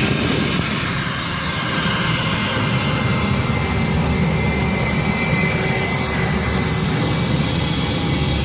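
Airbus A320 turbofan engines running at low taxi power as the airliner rolls slowly past close by. There is a steady rumble under a high whine, with a short rising tone about six seconds in.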